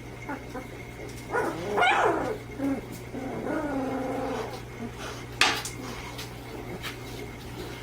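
Chocolate Labrador retriever puppies giving a sharp yelp about two seconds in, then a longer drawn-out cry. A brief sharp click follows a second later.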